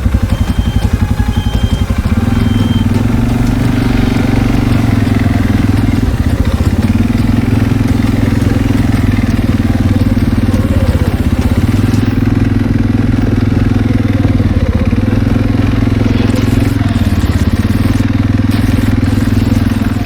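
An engine running steadily at a constant speed, with a faint short high tone repeating a few times in the first three seconds.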